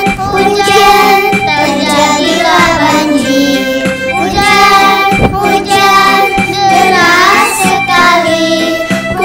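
Children's song in Indonesian: a child's voice singing over a steady instrumental backing track with held notes.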